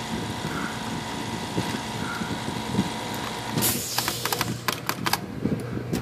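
A steady machine hum cuts off about three and a half seconds in, followed by a short hiss and a quick run of light metallic clicks as a Royal 10 typewriter's typebars are worked back and forth by hand in their segment slots, bars still sticky with old oil after a chemical flush.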